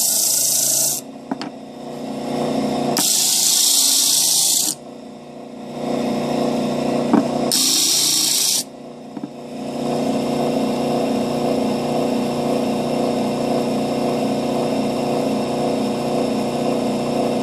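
Electric disc sander running with a steady hum while an MDF letter is pressed to the sanding disc: three bursts of loud sanding hiss of one to two seconds each, the first ending about a second in and the others at about three and seven and a half seconds. For the rest the motor runs on alone with no workpiece on the disc.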